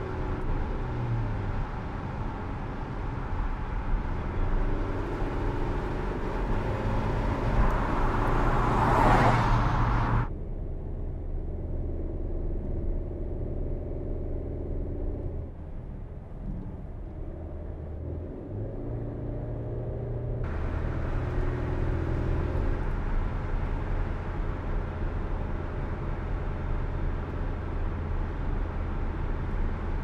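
Mercedes-Benz C-Class All-Terrain's four-cylinder engine running on the road, its pitch rising and falling with gear changes, with tyre and wind noise. Around nine seconds in a rushing swell builds and cuts off abruptly, and the sound changes character again shortly after twenty seconds.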